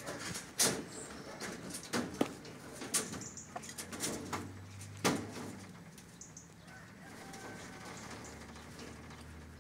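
Sharp knocks and rattles of rabbits moving on a wire-mesh cage floor as a giant rabbit buck mounts a doe, several loud ones in the first five seconds, then quieter, with faint bird calls in the background.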